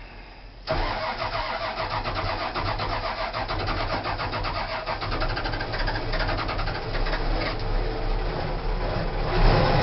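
Starter cranking a cold Case backhoe's diesel engine on a cold start: a fast, even chugging that begins suddenly about a second in, keeps on for several seconds and grows louder near the end.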